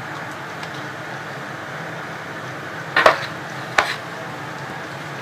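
Two sharp knocks of kitchenware, under a second apart, over a steady low hum.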